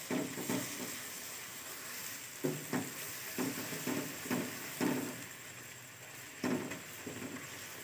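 Onion-tomato masala with spice powders and ginger-garlic paste sizzling in hot oil in a non-stick kadhai, with repeated soft scrapes of a silicone spatula stirring it. The masala is being fried until done.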